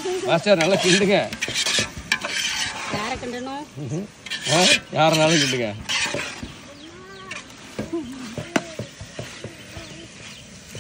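A long metal spoon stirring chicken and masala in a large metal cooking pot, scraping through the food and clicking against the pot's sides. Pitched voice- or call-like sounds rise and fall at times behind it.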